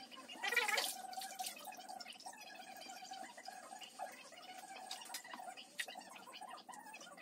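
Wet feathers being pulled by hand from a scalded chicken: faint wet ticking and dripping over a steady hum, with a short voice-like sound about half a second in.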